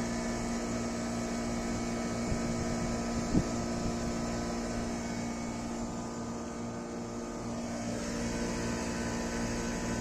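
Air conditioner unit running with a steady mechanical hum while it is topped up with refrigerant gas. A couple of small knocks come a few seconds in.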